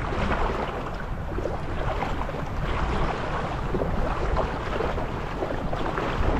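Wind rumbling on the microphone over the wash of small waves and fizzing surf foam, steady throughout.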